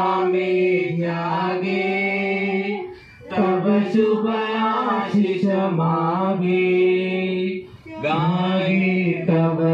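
A man singing unaccompanied in long held notes, in three phrases with short breaths about three seconds in and near the end.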